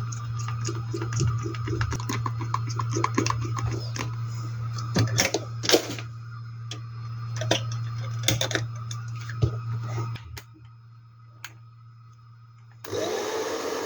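Plastic clicks and taps as the hair dryer casing is handled and closed, over a steady low hum. Near the end the repaired hair dryer is switched on for its test and runs with a steady rush of air, its motor whine rising briefly as it spins up.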